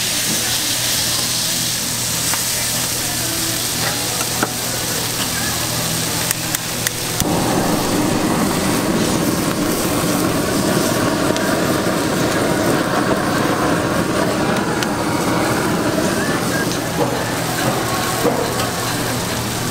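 Minced pork tteokgalbi patty sizzling on a flat steel griddle, with a few sharp clicks of a steel blade against the griddle as the patty is cut up. About seven seconds in the sound suddenly grows louder and fuller.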